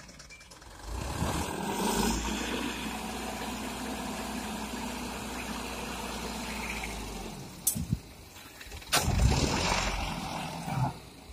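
Hino Dutro dump truck's diesel engine revving up and holding steady while it drives the hydraulic hoist raising the tipper bed, then dropping back. About nine seconds in a loud rush and thump as the load of soil slides out of the tipped bed.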